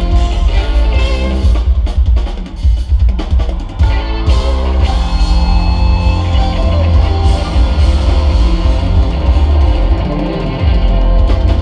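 Live band playing loud music: drum kit, guitar and keyboards over heavy bass, heard through the venue's PA system.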